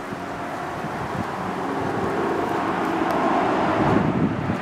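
A car passing on the road: its noise grows louder, peaks about four seconds in and then falls away.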